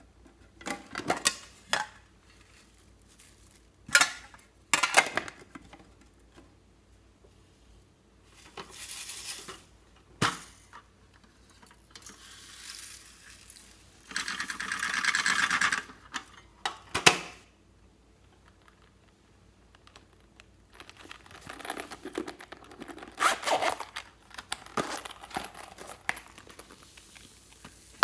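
Slime being handled in bursts: sticky crackles and pops as it is pressed and stretched, with small clicks and scrapes between, and a longer stretch of crackling about halfway through.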